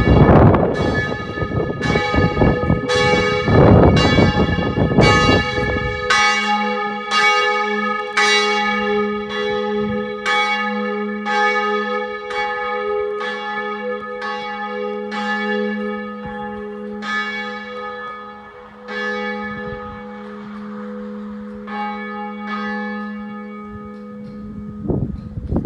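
Church bell tolling, struck about once a second, each stroke ringing on over a steady low hum. Over the first six seconds a loud rushing noise lies over the bell. Near the end the strokes grow fainter and sparser, and the hum cuts off shortly before the end.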